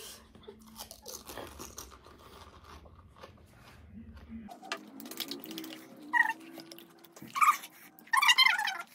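Crisp panipuri shells crunching as they are bitten, chewed and cracked open for filling, with small crackles throughout. A few short, high-pitched voice sounds come near the end.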